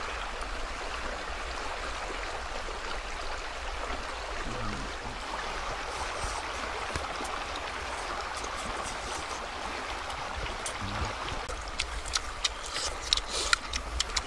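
Shallow rocky stream flowing, a steady even rush of water, with a few sharp short clicks near the end.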